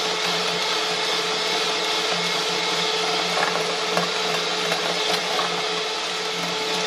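Electric hand mixer running steadily at constant speed, its twin beaters whipping chilled cream in a glass bowl, with a few faint ticks. The cream is being whipped to stiff peaks.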